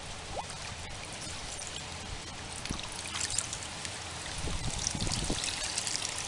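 Water splashing and trickling as a wet cast net is lifted out of the water by someone wading, water running off the mesh; the splashing picks up about halfway through.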